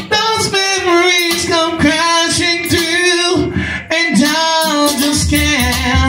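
A man singing into a handheld microphone, holding long notes that slide up and down in pitch, in short phrases.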